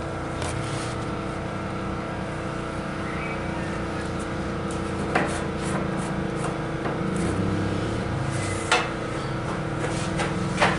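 A steady machine hum with a few sharp knocks and clatters of handling: about five seconds in, near nine seconds and again near the end.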